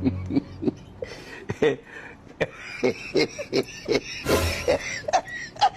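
Indian ringneck parakeet making a run of short clicks, chirps and muttered calls, with a louder, harsher burst about four seconds in.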